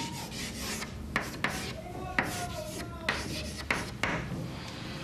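Chalk writing on a blackboard: a series of short scratching strokes, with a brief squeak a little over two seconds in.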